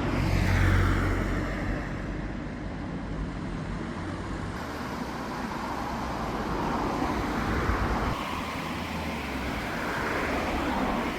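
The engine of heavy earthmoving machinery running steadily, a low hum with a whine that swells and fades.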